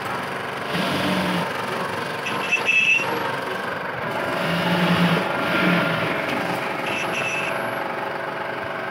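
Steady engine-like mechanical noise, with a brief high-pitched tone about two and a half seconds in and again about seven seconds in.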